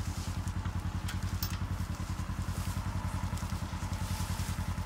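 Engine of a side-by-side utility vehicle idling, a steady low throb of about seven or eight beats a second, with a few light clicks over it.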